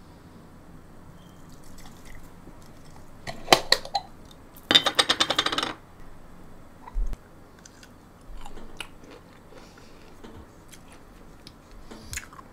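Metal lid being twisted open on a glass jar of gherkins: two sharp clicks, then about a second of loud rapid clicking as the lid turns on the glass threads. A low knock follows, then a few faint small ticks and clinks.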